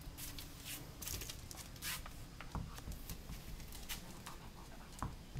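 A string of short, scratchy rustles and soft clicks at irregular intervals.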